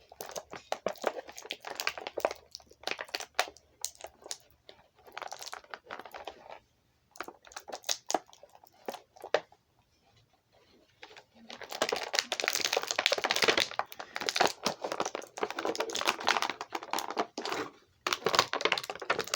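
Plastic packaging crinkling and rustling with scattered clicks and crackles as an action figure is worked free of its box; the crinkling becomes dense and loudest through the second half after a brief pause.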